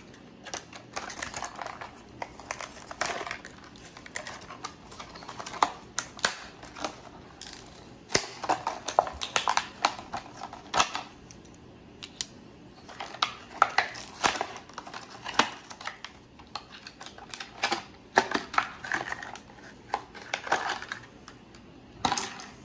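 Hands unpacking the knife's accessories: a black plastic belt clip and other package contents picked up, handled and set down on a cutting mat, making irregular clusters of short clicks, taps and rustles.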